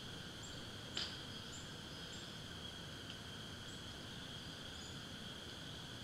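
Woodland ambience: a steady high insect drone, with a few faint short high chirps over it and one sharp click about a second in.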